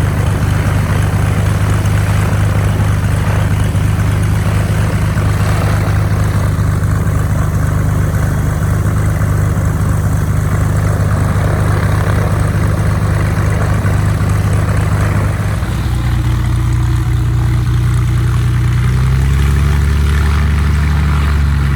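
Cessna 180's freshly remanufactured Continental O-470 six-cylinder engine and propeller running steadily at low power. The engine note changes about fifteen seconds in and again near the end.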